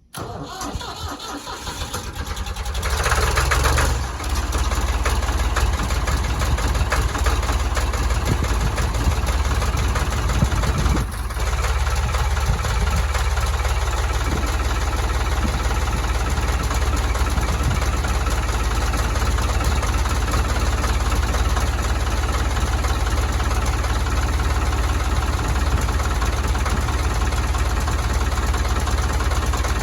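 Ford 3930 tractor's three-cylinder diesel engine starting up, loudest about three seconds in, then running steadily.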